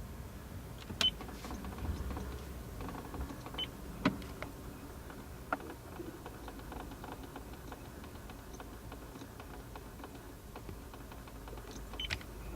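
Low steady hum in the cabin of a 17-series Toyota Crown, with a few scattered sharp clicks and ticks about a second in, around four and five and a half seconds, and again near the end: the abnormal noise that the owner believes comes from the air-conditioning switching (damper) motor.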